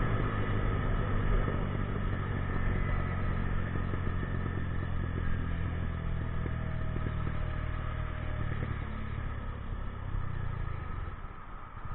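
50cc scooter engine running at a steady pitch under way, dying down near the end.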